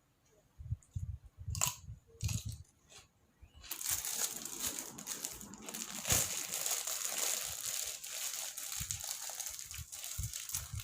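Close-up chewing with soft rhythmic thumps. From about four seconds in, a continuous crinkling, crunchy rustle runs over the chewing.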